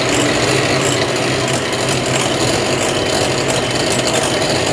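Electric hand mixer running steadily at an even speed, its twin beaters whisking oil and milk in a bowl.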